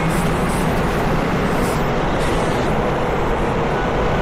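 Steady mechanical rumble and low hum of a moving escalator, heard from on the steps amid the noise of an underground metro station.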